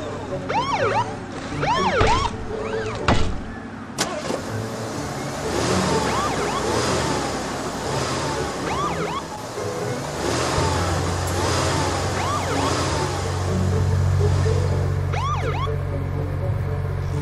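Police car siren yelping in quick repeated rising-and-falling whoops. A few sharp knocks come in the first four seconds, and a steady low engine hum joins about ten seconds in.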